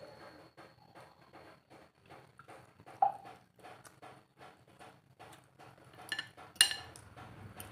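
Close-up chewing and mouth sounds from eating noodle soup, a steady rhythm of about three to four chews a second. There is a sharper sound about three seconds in and a louder one near the end.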